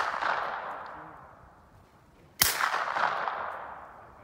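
A single rifle shot about halfway through, its report rolling away in a long echo that dies out over more than a second. At the start, the echo of the previous shot is still fading.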